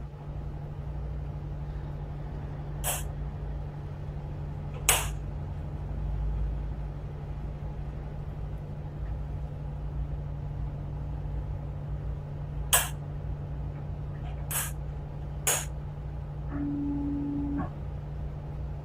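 A tugboat's engine hums steadily, heard from inside the wheelhouse, with five sharp clicks or knocks scattered through it and a short low tone lasting about a second near the end.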